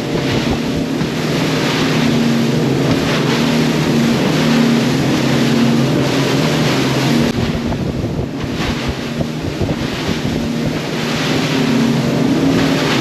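Sea Hunt Gamefish 30 boat's outboard engines running steadily under heavy wind buffeting on the microphone and the rush of water along the hull. The wind hiss eases briefly about eight seconds in.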